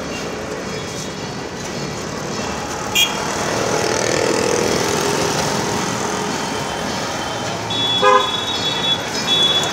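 Steady road-traffic noise with vehicle horns sounding: a short toot about three seconds in, then honking near the end.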